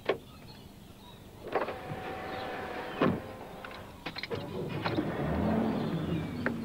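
Car sounds from inside a car's cabin: the driver getting in, with knocks and a door shutting with a thump about three seconds in, then a few clicks and a rising run of engine and road noise.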